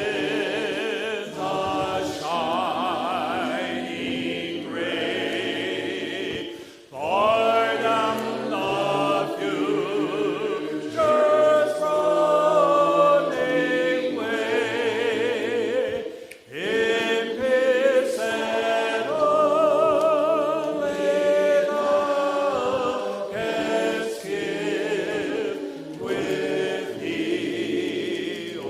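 Worship song sung by a group of voices, held notes wavering in pitch, with short breaks between phrases about 7 and 16 seconds in.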